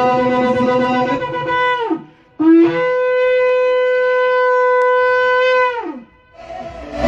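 A long curled shofar sounded in held blasts. One blast ends about two seconds in. A second, longer one opens with a brief lower note, jumps up to a steady tone and sags in pitch as it dies away near six seconds.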